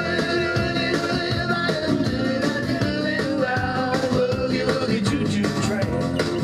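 Banjo and guitar playing a country tune together, plucked notes on a steady beat.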